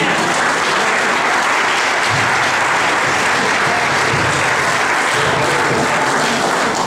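Congregation applauding: dense, steady clapping from many people.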